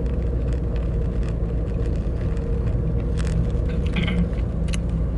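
Steady low rumble of a car running, heard from inside the cabin, with a faint steady hum above it.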